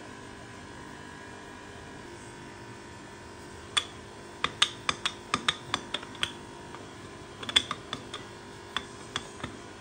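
Wooden rolling pin clacking against a marble countertop as dough is rolled out flat: a run of sharp, irregular clicks starting about four seconds in, over a faint steady hum.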